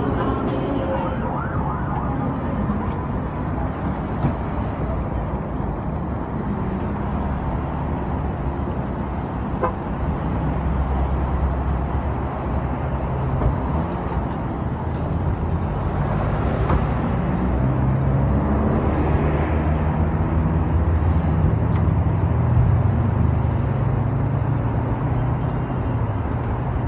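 Steady outdoor city noise dominated by a low rumble of road traffic, with a few faint clicks.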